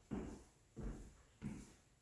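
Three footsteps of a person walking at an even pace in shoes across a hard floor, soft thuds about two-thirds of a second apart.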